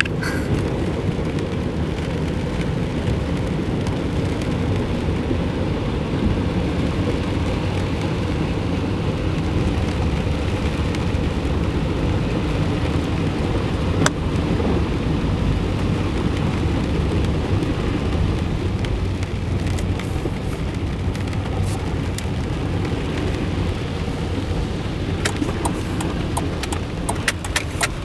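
Car driving through a flooded street in rain, heard from inside the cabin: a steady low rush of water churning and spraying under the car, with a few sharp taps near the end.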